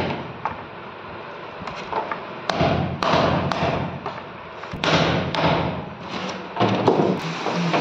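Small sledge hammer striking metal T-nuts into pre-drilled holes in a plywood board: a series of irregularly spaced thuds and knocks.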